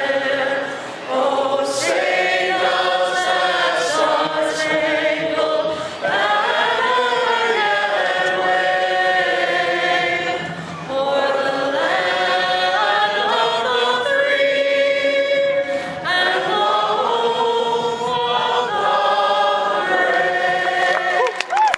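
A national anthem sung in long held notes, a lead singer with many voices joining in like a choir.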